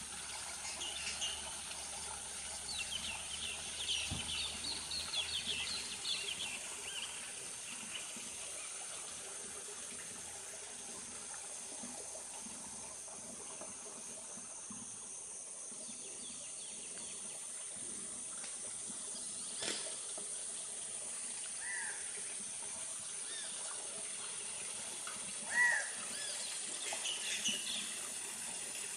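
Steady flow of water with birds chirping over it: a burst of calls a few seconds in and scattered calls near the end, and a single sharp click about two-thirds of the way through.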